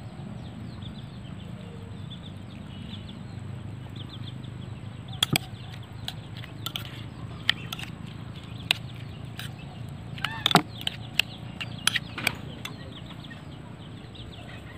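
Metal spoon clinking against a ceramic bowl several times, scattered through the second half, as a chopped-vegetable mixture is stirred. Chickens cluck faintly in the background, over a steady low hum.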